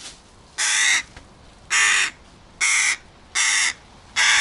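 Fledgling hooded crow cawing repeatedly: five loud caws a little under a second apart, the last cut off at the end.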